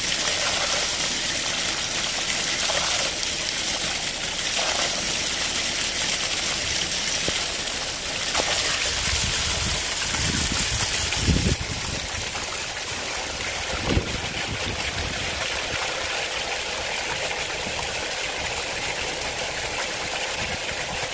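Storm runoff gushing out of a downspout outlet in a hard rain, a steady rushing hiss of spraying water, partly restricted by a hand over the outlet. The rush drops a little about halfway through, with a few brief low thumps around the middle.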